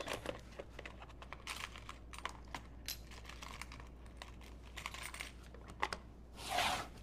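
Scattered, irregular light clicks and taps of small hard objects being handled on a tabletop, with a short rustle about six and a half seconds in.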